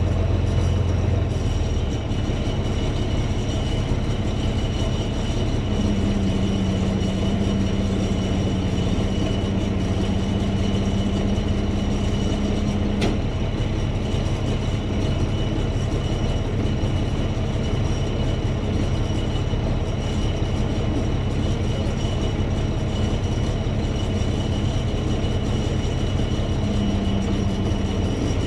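Heavy vehicle engine running steadily under load, with a steady high whine over it; the low engine note changes pitch a few times.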